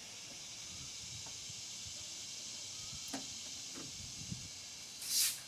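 Faint handling sounds of hands working a car window glass and its track inside the door: a few light clicks and taps over a steady high hiss, with a short hissing rush near the end.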